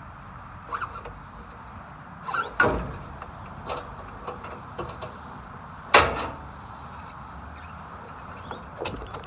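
Scattered knocks and clatter at irregular intervals, the loudest a single sharp impact about six seconds in with a short ring after it.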